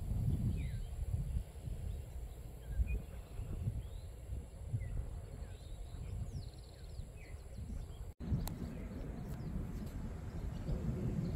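Wind buffeting the microphone in an uneven low rumble, with scattered short bird chirps above it. The sound cuts out for an instant about eight seconds in.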